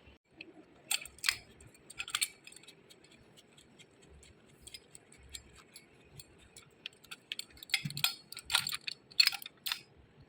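Small metal clicks and clinks, scattered at first and bunching together near the end: metal motor parts and tools being handled and set down during bearing work.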